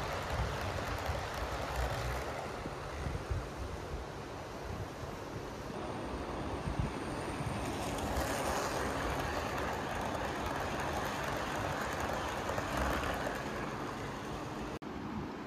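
HO-scale model train, a WAP-7 electric locomotive with blue ICF coaches, running along the layout track with a steady rolling rumble. It grows louder and brighter from about halfway, as the locomotive passes close, and cuts out for an instant near the end.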